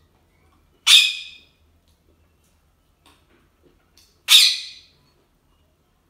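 Ringneck parrot giving two loud, harsh squawks about three and a half seconds apart, each cut off sharply and fading within about half a second.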